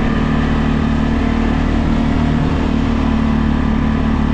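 CF Moto 625 ATV's single-cylinder four-stroke engine running at a steady pace while riding on a gravel track, its note holding even throughout.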